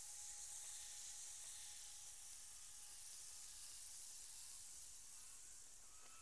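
Steady high hiss of an outdoor nest-cam microphone, with a faint steady tone that fades out about a second and a half in. Faint thin whistles come in the second half.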